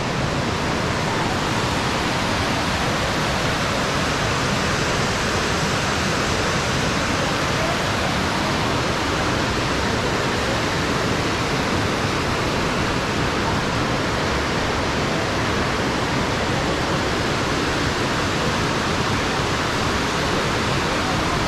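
Creek water rushing over rocky rapids, a steady, even rush of white water.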